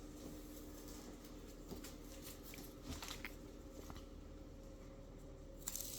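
Faint rustling and small clicks as the white paper backing is peeled off weather-stripping tape, with a louder crackle of the backing near the end, over a faint steady hum.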